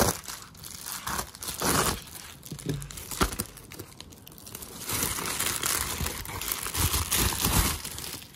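A mail package being opened by hand: packaging crinkling and tearing in irregular rustles with a few sharp clicks, turning into steadier tearing from about five seconds in.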